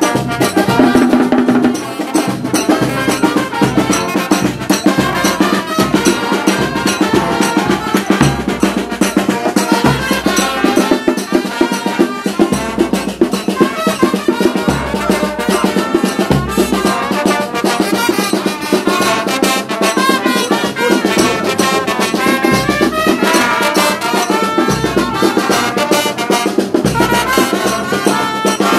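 Brass band music: trumpets and other horns over drums with a steady beat.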